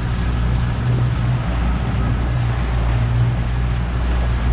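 Motorboat engine running steadily at trolling speed: a low, even drone, with wind on the microphone and water rushing past the hull.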